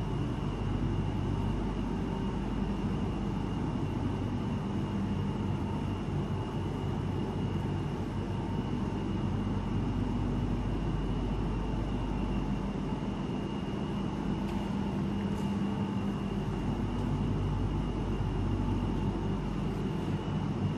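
Ventilation fans running with a steady drone, a low hum under a thin, even high whine.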